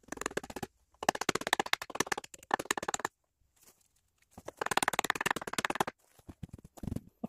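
Fast scraping, rasping strokes of a hand tool working wood, in three runs with short pauses between them.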